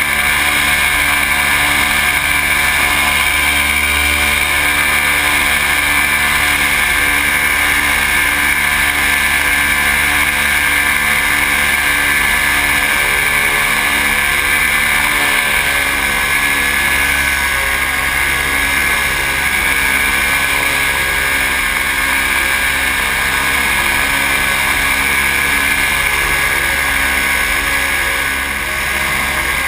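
Paramotor engine and propeller running at steady power in flight, holding an even pitch and dropping slightly in level near the end.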